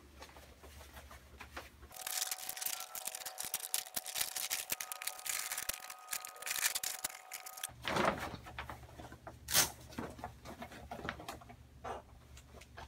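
Rustling and crinkling of a grow tent's fabric and reflective lining being handled during assembly, with scattered clicks. There is a brief loud rasp about two-thirds of the way through.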